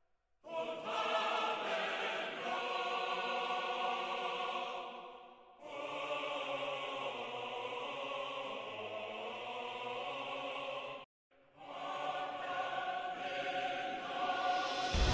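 Soundtrack music: a choir singing long held chords in three phrases, the second breaking off abruptly about eleven seconds in.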